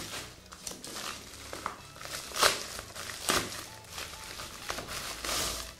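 Plastic mailer bag crinkling and rustling in irregular crackles as a football boot is pulled out of it, loudest about two and a half seconds in and again a second later.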